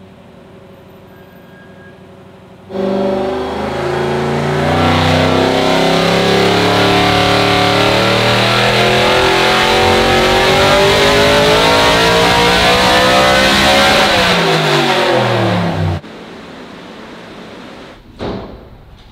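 Off-road race trophy truck engine on a hub dyno, running quietly at first. About three seconds in it comes in loud and pulls steadily up through the revs under load for about eleven seconds: a full dyno pull. It then drops back and cuts off sharply.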